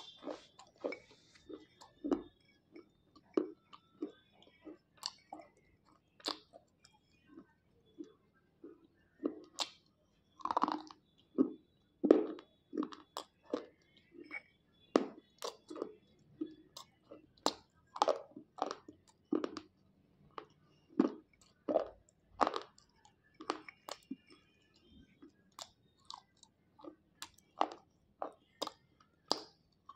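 Slate pencils dipped in wet clay paste being bitten and chewed: crunch after crunch at an uneven pace, a stroke every second or less.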